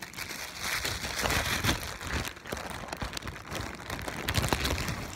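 Plastic bread bag crinkling and rustling as hands open it and handle the bread, a dense crackle with many sharp clicks.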